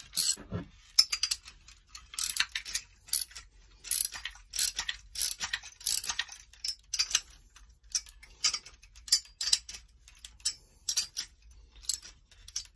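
Socket wrench ratcheting in short bursts of clicks, about two a second, as it tightens the 14 mm acorn nuts on the cylinder studs of a YD-100 two-stroke engine.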